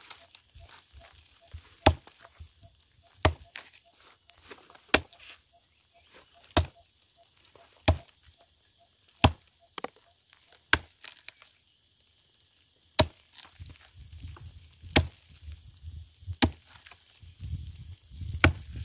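Axe chopping into a dead wooden stump, about eleven sharp blows, one roughly every second and a half.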